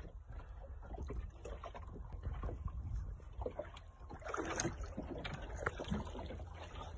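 Steady low rumble of wind and water around a small fishing boat at sea, with scattered light knocks and a louder noisy burst about four seconds in.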